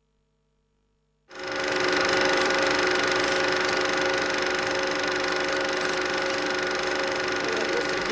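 Film projector running: a steady mechanical whirr with several held tones, starting abruptly about a second in after near silence.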